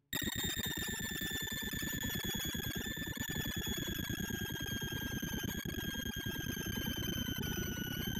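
Synthesized array-access tones of a sorting-algorithm visualizer running Quick Sort with left/right pointers: a dense, rapid chatter of low beeps under one held high tone that drops slightly in pitch in small steps every few seconds. It starts abruptly right as the sort begins.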